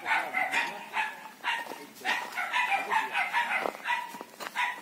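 Short animal calls repeating every few tenths of a second, with one knock about three-quarters of the way through.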